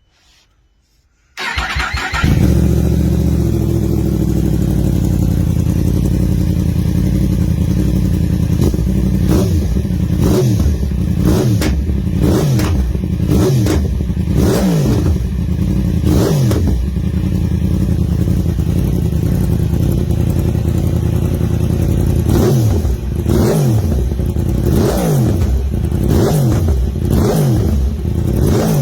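A Yamaha YZF-R1 RN32's crossplane inline-four fires up through an aftermarket exhaust about a second and a half in and idles loudly. It is then blipped over and over: a run of short sharp revs, a spell of steady idle, then a second run of revs.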